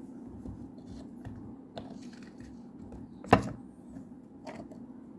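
Rough stone geodes handled in a plastic tub: a few light clicks and knocks as the stones are turned and set against each other and the tub, with one sharp knock about three seconds in.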